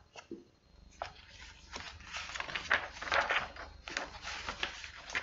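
Paper pages of a picture book rustling and crackling as they are handled and turned, in irregular short strokes starting about a second in.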